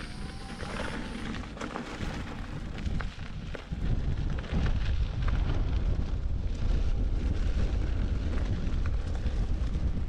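Inmotion V12 electric unicycle rolling over a sandy trail: a low rumble of the tyre and of wind on the camera's microphone, with scattered crackles and clicks of grit under the tyre. It grows louder about four seconds in.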